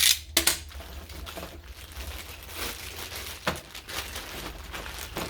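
Packaging being handled and opened: irregular crinkling, with a few sharp clicks, the loudest right at the start.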